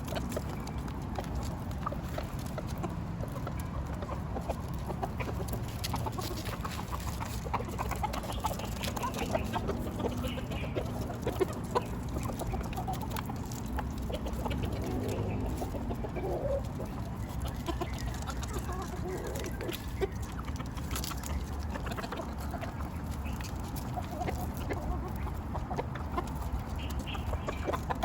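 Chickens clucking with short, scattered calls while they feed on vegetables, over scattered light clicks and a steady low background rumble.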